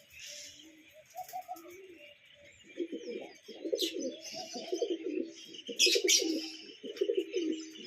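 Pigeons cooing: a low, rolling, repeated coo starts about three seconds in and carries on, with short high chirps from other small birds above it.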